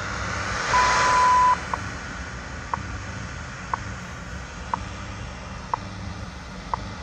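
WWV time signal on 15 MHz shortwave, played through a Yewrich YU-RU8 portable receiver: about a second in, a steady beep just under a second long marks the top of the minute, then a short tick sounds every second over steady static and hum.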